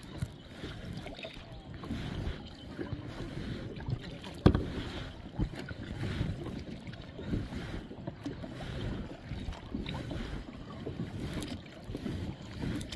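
Kayak paddle strokes in water, with irregular splashing and dripping. A single sharp knock comes about four and a half seconds in.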